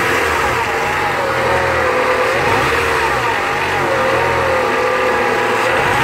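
Renault Clio 1.0 16V four-cylinder engine idling unevenly with an ugly whine that rises and falls in pitch about once a second. The noise comes from the timing-belt area, where the tensioner bearing has broken and its cover is coming loose, while the engine misfires.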